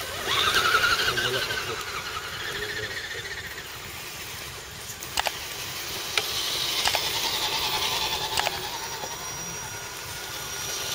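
Small electric motor and gearbox of a radio-controlled scale truck whining, its pitch rising and falling as the throttle changes, with a few sharp clicks.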